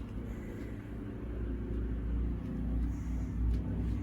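Steady low droning hum with no clear events, like a running motor or engine in the background.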